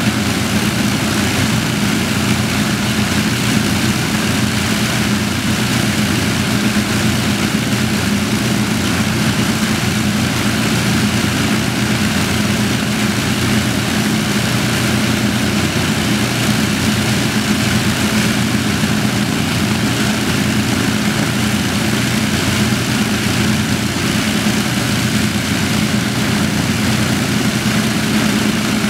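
Avro Lancaster's four Rolls-Royce Merlin V12 engines running together on the ground with propellers turning, a steady, even engine drone.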